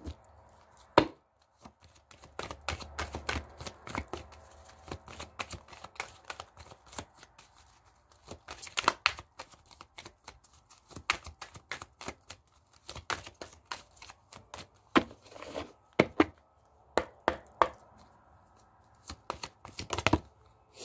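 Deck of oracle cards being shuffled by hand: an irregular stream of sharp clicks and slaps as the cards knock together, with a loud knock about a second in.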